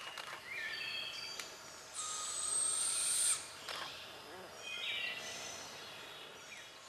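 A young barred owl gives a long, high call about two seconds in, lasting over a second. It is the kind of begging call a fledgling makes to its parent for food. Shorter whistled bird notes come before and after it.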